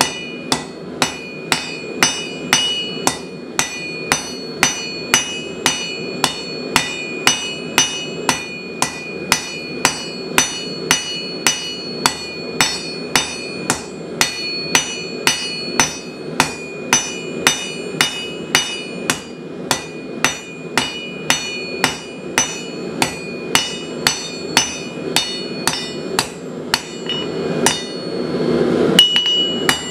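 Hand hammer striking hot steel on an anvil, drawing a point on a bent end of round bar. The blows come steadily at about two a second, each with a bright ring, over a steady low rush. Near the end the blows pause briefly and the rush swells.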